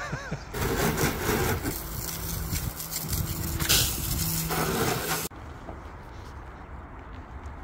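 Garden hose spraying water onto a car's wheel and bodywork: a steady hiss that cuts off suddenly about five seconds in. After it, the quieter rubbing of a long-handled car-wash brush scrubbing the wet paintwork.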